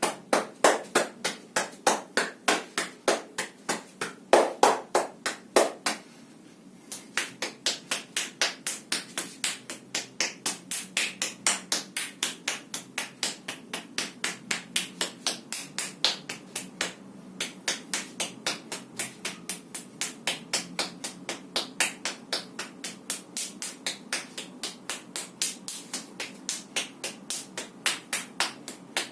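Steady rhythm of sharp hand slaps on the body, about three a second, typical of percussive massage (tapotement). The slapping stops for about a second some six seconds in, then resumes.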